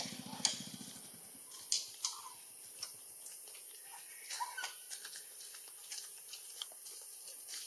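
Quiet outdoor ambience under trees: a steady high hiss, a low pulsing hum that fades out within the first second, then scattered soft clicks and a few short, faint chirps.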